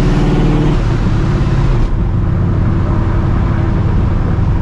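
Straight-piped, cammed and Procharger-supercharged 5.4 V8 of a 1999 Mustang GT running while driving. The engine note drops in two steps within the first two seconds, then settles into a steady low cruise.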